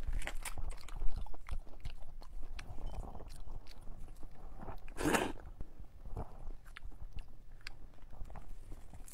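Shell of a large red prawn crackling and snapping in many short clicks as gloved hands pull it apart, with chewing and crunching. One louder noisy burst comes about five seconds in.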